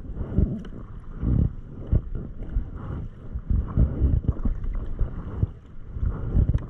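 Double-bladed kayak paddle strokes dipping and splashing on alternate sides of a plastic sit-on-top kayak, with irregular low wind rumble on the microphone.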